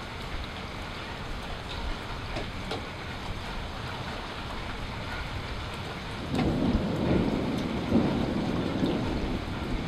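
Steady rain with scattered drips and taps, and a low rumble of thunder that swells about six seconds in and lasts about three seconds.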